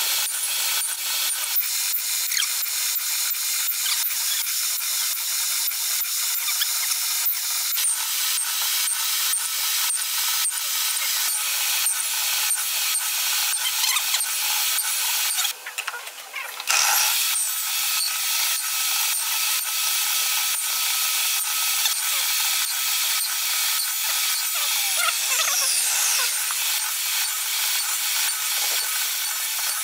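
Table saw running and cutting a hardwood board, making repeated passes to cut notches for a finger joint. The noise briefly drops away about halfway through.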